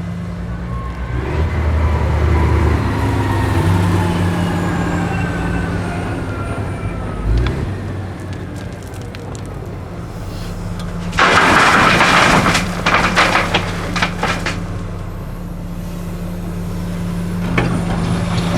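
Komatsu PC450LC-7 excavator's diesel engine running under load, its pitch rising for a couple of seconds, with hydraulic whines falling in pitch above it. About eleven seconds in, a loud rush and rattle of gravel pouring from the bucket into the dump truck's bed lasts about three seconds, then a shorter clatter follows near the end.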